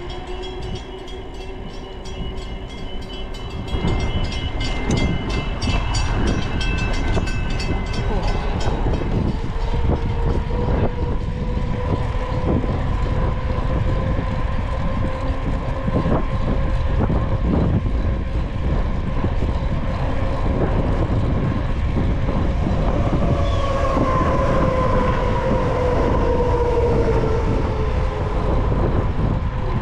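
A train running close by, with a steady whine that slides down in pitch about three-quarters of the way through, over a run of clicks and a low rushing noise. The sound grows louder about four seconds in.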